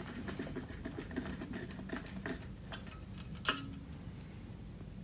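Light irregular clicking and scraping of a small screwdriver driving a mounting screw through a COB LED chip into a floodlight's aluminium housing, with one sharper click about three and a half seconds in.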